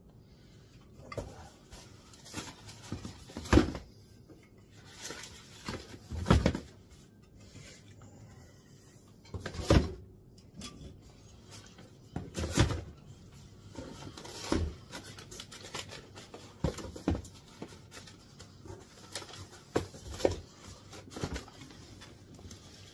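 Irregular knocks and clunks of beer cans and bottles being picked up and set down on a wooden bar counter as it is cleared, a dozen or so separate bumps with short pauses between them.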